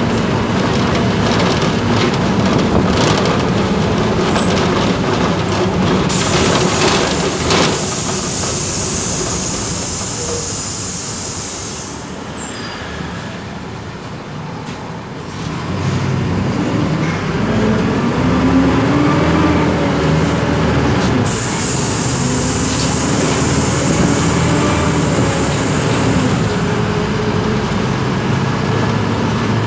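Inside a city bus: the engine running with road noise and rattling while the bus rolls. It quietens for a few seconds about halfway through, then the engine climbs in pitch as the bus pulls away again. A high hiss comes and goes twice.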